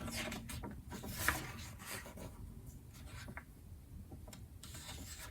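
Pages of a glossy magazine being turned and handled: a few paper swishes and rustles with light clicks of paper.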